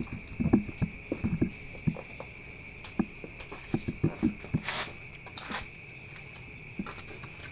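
Crickets trilling steadily, with irregular soft footfalls and knocks on a concrete floor and a brief scrape about five seconds in.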